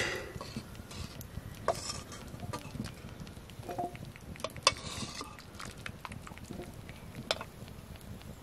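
Metal ladle clinking and scraping against a steel wok and a steel bowl as fried meat is scooped out, with a few sharp clinks a second or more apart.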